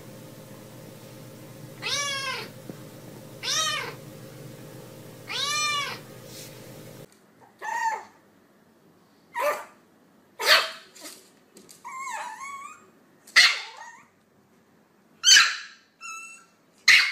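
A kitten meowing three times, each meow rising and falling in pitch, over a steady hum. After a cut, a chihuahua puppy gives about seven short, sharp yaps one to two seconds apart, with one longer wavering whine among them.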